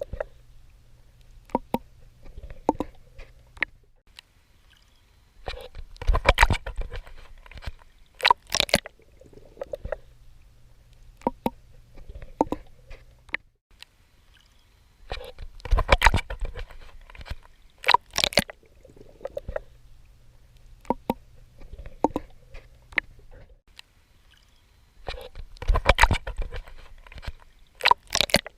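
Swimming in water: clusters of sharp splashes from strokes breaking the surface, coming about every ten seconds, with quieter gurgling and a low steady hum between them.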